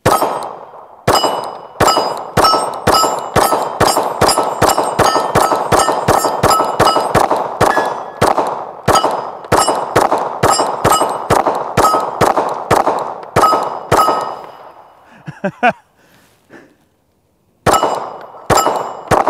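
Glock 19 9mm pistol fired in a long rapid string from a high-capacity magazine, about three shots a second, with steel targets ringing after the hits. The string stops after about 14 seconds, and two more shots follow near the end.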